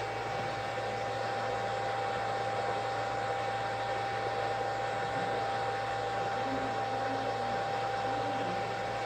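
BGA rework station's upper hot-air heater blowing steadily, a constant hiss with a steady high whine and a low hum, as it heats a BGA chip for desoldering.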